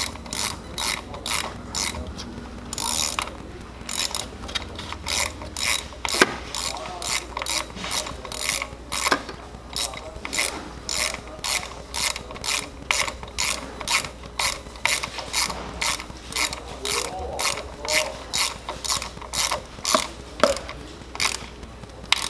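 Hand socket ratchet clicking in quick bursts about twice a second, its pawl ratcheting on each back-stroke as a spark plug is run down and tightened.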